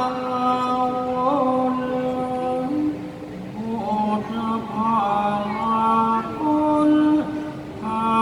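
Thai royal barge chant (he ruea): a single singer drawing out long held notes with ornamented bends, pausing briefly twice.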